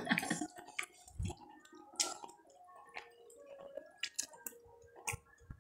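Mouth noises of a person eating rice by hand: wet chewing and lip smacks, with a scatter of small clicks.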